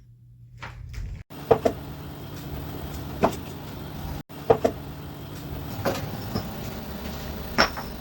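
Newly installed air conditioner running after start-up: a steady low mechanical hum, with several sharp knocks and clicks over it. The sound cuts out abruptly twice.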